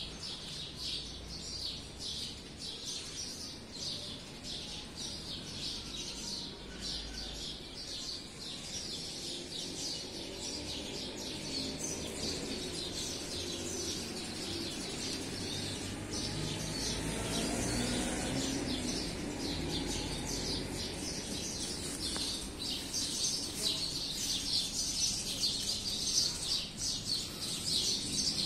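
Many small birds chirping continuously in a dense chorus, with a low rumble swelling and fading about halfway through.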